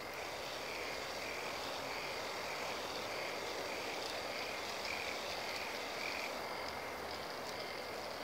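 K'NEX swing ride running: its motor and plastic gears and chains give a steady whir. Over it a faint high chirp repeats about twice a second until about six seconds in, with a few light clicks near the end.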